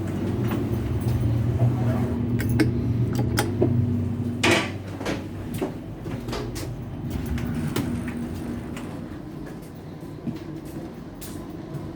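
A regional passenger train's steady low hum with scattered clicks and knocks, and one sharp clack about four and a half seconds in; the hum eases off after about nine seconds.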